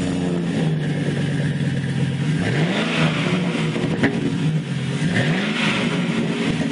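Chevy Silverado pickup engine idling just after starting, heard through a custom exhaust with Flowmaster 40 series mufflers, single in and dual tailpipes straight out the back. It is blipped twice, the pitch rising and falling, about two and a half seconds in and again about five seconds in.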